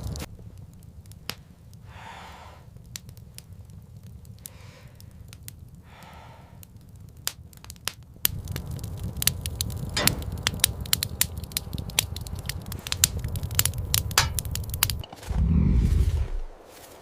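Wood fire crackling and snapping over a low steady rumble, with the crackles coming thicker in the second half. A loud low sound breaks in near the end.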